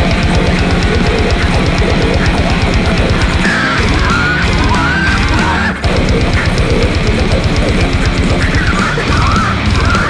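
Heavy metal music with fast, pounding drums and distorted guitar, with a brief break just before the middle. Over it come high wavering squeals in two stretches, a little before the middle and near the end.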